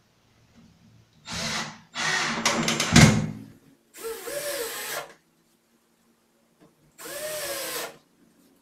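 Cordless drill/driver running in four short bursts, driving screws into melamine board. The motor's pitch rises and falls within the later bursts.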